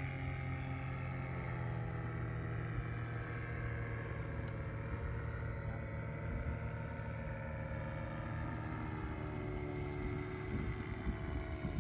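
Paramotor engine droning as the powered paraglider flies overhead, a steady engine note whose pitch wavers with the throttle.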